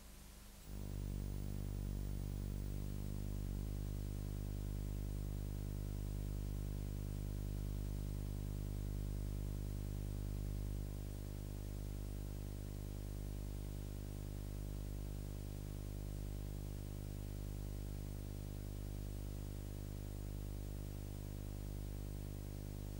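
Steady electrical hum: a low buzz with many overtones, starting about a second in and dropping slightly in level about halfway through.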